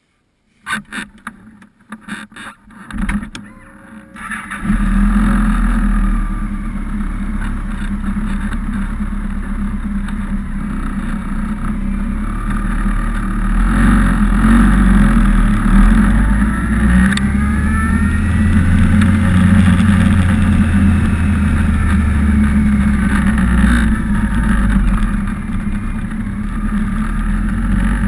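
A few knocks and clicks, then about four and a half seconds in, the BMW K1200RS's inline-four comes up steady and loud through its modified stock muffler, with the packing removed, as the bike pulls away and rides off slowly.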